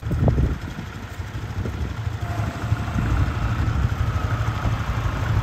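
Kubota compact tractor's diesel engine running steadily as the tractor drives along, a low, even engine note.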